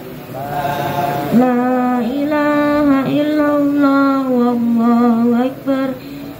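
A single voice reciting the Qur'an in the melodic tilawah style, drawing out long held notes that waver slightly, with a short break about five and a half seconds in.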